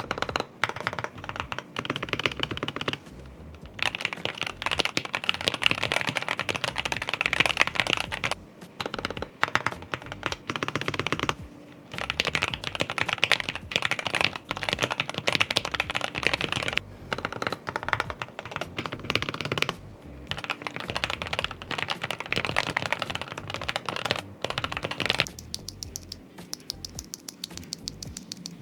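Fast typing on a mechanical keyboard with factory pre-lubed Gateron Green switches: dense runs of key clicks lasting several seconds, broken by short pauses, thinning out near the end.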